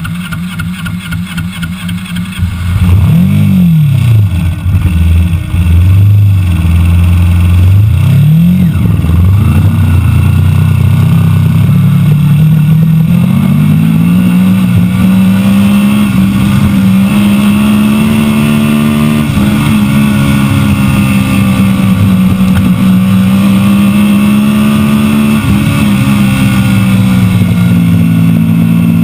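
Engine of a small hybrid open-wheel race car, quieter at first, then loud from about three seconds in. It revs up and down twice, then climbs and holds a fairly steady pitch as the car drives.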